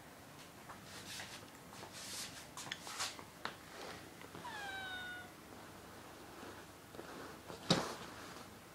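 A domestic cat meows once about halfway through, a short call falling in pitch, amid scuffles and short scrapes on the sofa as it plays at a hand. A sharp tap near the end is the loudest sound.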